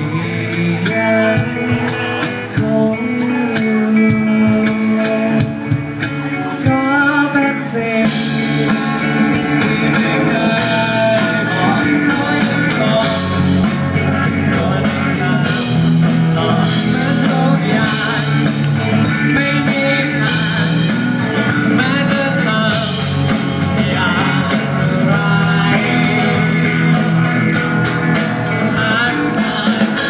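Live rock band playing through a PA: a male singer over acoustic and electric guitars and keyboard. About eight seconds in, the band fills out with a steady drum beat and cymbals.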